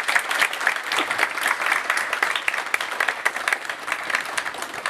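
Audience applauding: dense, steady clapping from a hall full of people, starting to thin out near the end.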